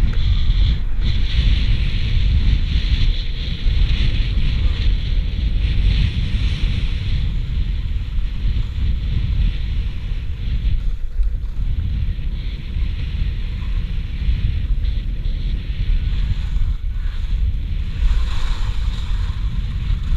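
Wind rumbling on the microphone of a skier moving downhill, over the steady hiss and scrape of skis sliding on packed snow.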